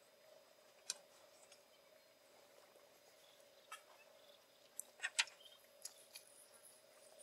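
Quiet background with a faint steady hum and a few scattered light clicks and taps; the loudest is a quick pair about five seconds in.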